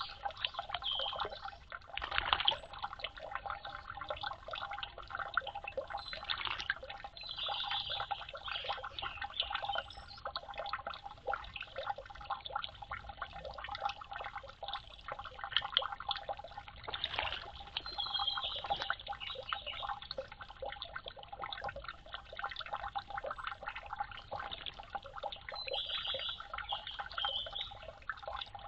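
Water trickling and splashing continuously, a dense patter of small drips and splashes.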